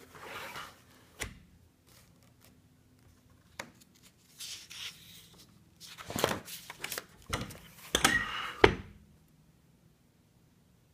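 Paper pages of a spiral-bound sketchbook being handled and turned: several bursts of rustling, the loudest in the second half, with a few sharp clicks in between.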